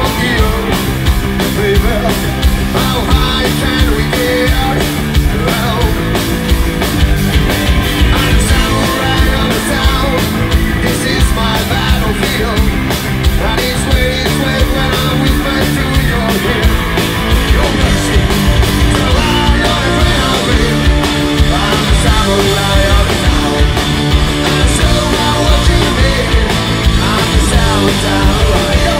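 A rock band playing live and loud: distorted electric guitars, bass and a drum kit keeping a steady beat, with a singer's voice.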